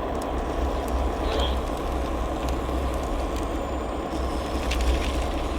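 LEGO City 60052 cargo train running under power, pushing a car along plastic track: a steady low rumble and hum from its Power Functions train motor and wheels, with a few faint clicks.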